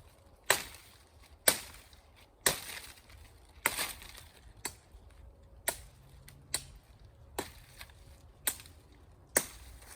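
Machete chopping branches off a felled tree trunk: about ten sharp strikes, roughly one a second, the first few the loudest.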